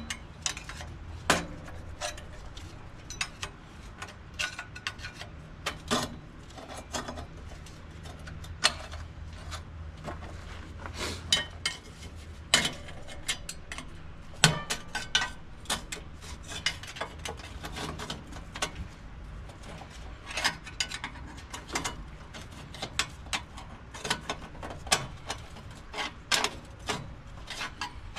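Hand-tool work on a Detroit 8V92 diesel engine: a ratchet wrench clicking in short runs, with metal tools clinking against engine parts at irregular intervals.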